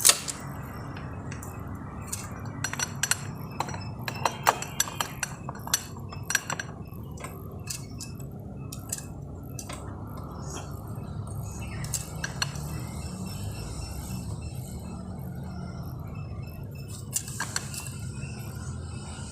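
Metal hand tools and engine parts clinking and tapping against each other during motorcycle engine reassembly: irregular light metallic clicks, thickest in the first half, over a steady low hum.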